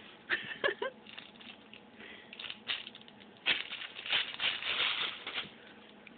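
Thin plastic bag crinkling and rustling in irregular bursts as a cat bats at and tangles with it, with a longer, denser run of crinkling in the second half.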